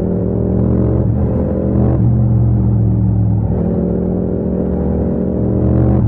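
Yamaha MT-07's 689 cc parallel-twin engine pulling steadily in fourth gear at about 80 km/h, a loud even drone that picks up slightly as the bike gains speed.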